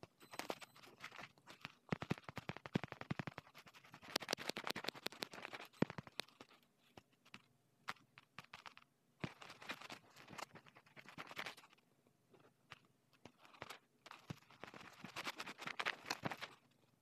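Scratchy rubbing of strokes drawn on a phone touchscreen, in three bursts of rapid scratching a few seconds long with quieter gaps between.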